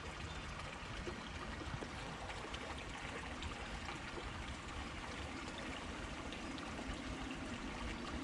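Steady rush and trickle of a shallow creek's running water.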